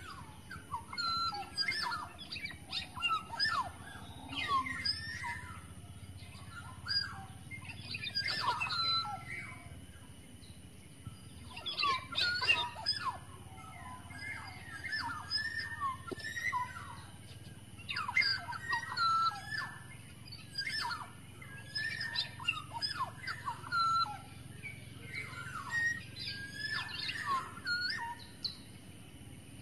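Black-naped oriole (kepodang) calling: many short whistled and chirping notes that slide in pitch, coming in quick, often overlapping runs throughout.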